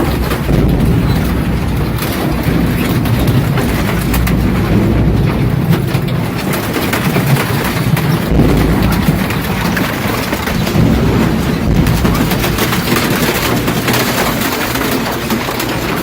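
Recycling machinery running: a double-shaft shredder and washing line giving a loud continuous rumble with constant cracking and clatter.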